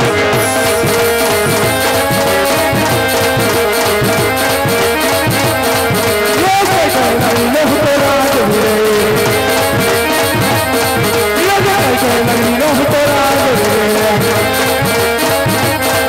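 Indian folk music: a held, wavering melody line over a quick, steady drum beat.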